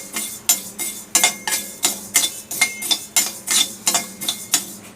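Coriander seeds being dry-roasted and stirred in a kadai: a rhythmic scraping rattle of the stirrer against the pan and seeds, about three strokes a second.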